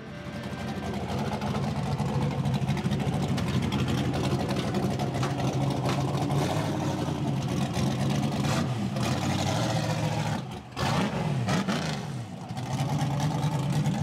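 Rock buggy's engine running under load as it climbs a steep dirt hill, with a brief drop about three-quarters of the way through, after which the revs fall and rise again.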